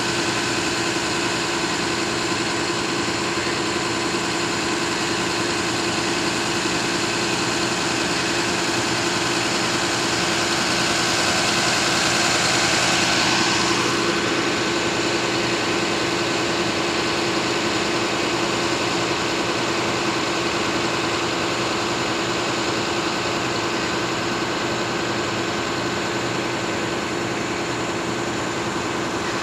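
John Deere 6830 tractor's six-cylinder diesel engine running steadily under ploughing load, swelling louder for a few seconds about midway through.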